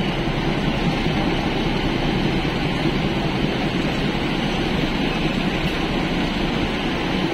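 Steady running noise of an EMU suburban local train heard from on board: a constant rumble of wheels on track with no distinct rail-joint clicks.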